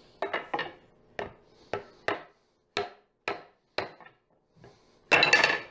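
Rubber mallet knocking against a teak chair frame to drive apart a loose glued dowel joint. There are about ten blows, a quick three at first and then roughly one every half second. A louder, longer clatter comes near the end as the joint comes apart.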